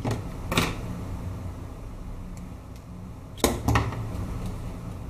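Bench handling noises as a resistor's leads are worked by hand next to a circuit board: a few short clicks and knocks, two near the start and a louder pair about three and a half seconds in, over a steady low hum.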